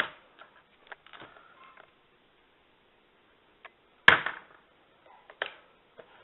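Airsoft revolver being handled: a few light clicks, then one loud sharp snap about four seconds in, followed by two fainter clicks.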